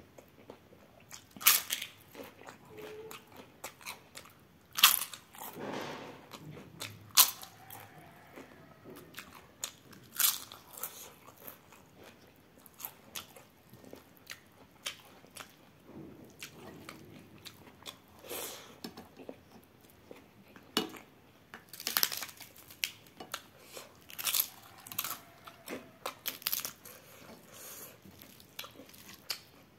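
Close-miked eating: crisp fried papad crunching in sharp bites, about ten in all, with softer chewing between them.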